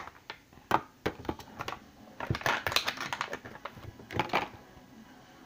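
Irregular clicks and taps of a fidget spinner being handled in the fingers and flicked to spin, a cluster around the middle and a last few near four seconds in, then dying away.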